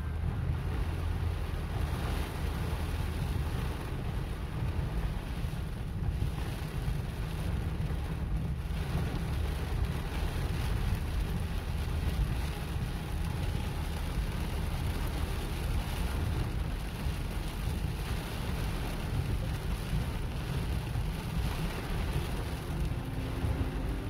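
Heavy rain falling on a car's windscreen and roof, heard from inside the cabin, over a steady low rumble of the moving car on the wet road.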